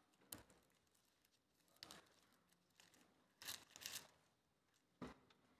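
Thin Bible pages rustling as they are leafed through, about four faint, brief rustles with near silence between them.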